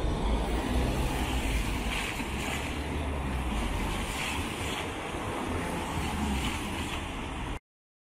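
City street traffic with wind buffeting the microphone: a steady rushing haze with a heavy low rumble, a tram and cars passing underneath. It cuts off suddenly shortly before the end.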